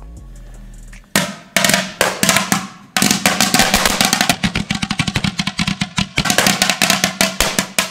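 Crackling-snake firework going off inside a closed grill: a string of sharp crackling pops, scattered at first about a second in, then coming thick and fast from about three seconds.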